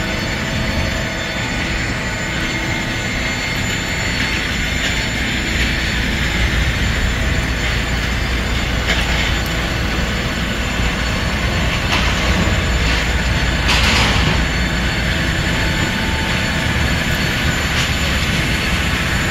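Steady rumble and hiss of airport apron noise from aircraft and ground equipment, with a couple of brief louder rushes of hiss about two-thirds of the way through.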